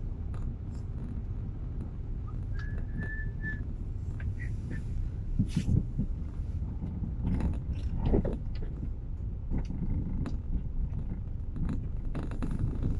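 Car engine and road noise heard inside the cabin as a steady low rumble, with a few sharp knocks and a brief steady high whistle-like tone lasting about a second, roughly two and a half seconds in.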